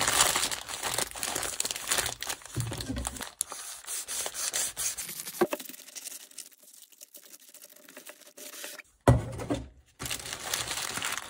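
Crinkling and rustling of bagel packaging as the bagel sandwich is handled, with scattered small clicks, easing off after about five seconds. A sharp knock about nine seconds in is the loudest sound.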